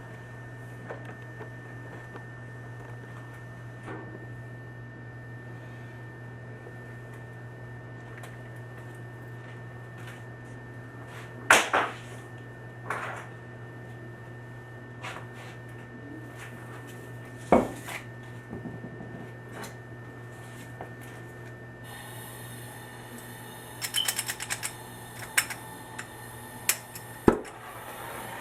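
Sharp metallic clicks and knocks from copper pipe fittings and tools being handled, over a steady low hum. Two louder knocks come in the middle, and a quick run of clicks comes near the end.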